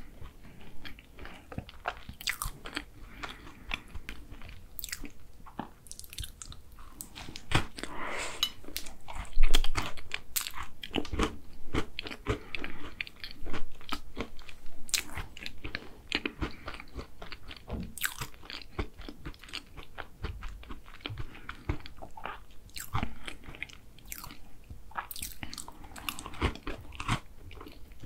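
Close-miked chewing and biting of chocolate tart, with many irregular crisp crunches of the pastry and soft wet mouth sounds.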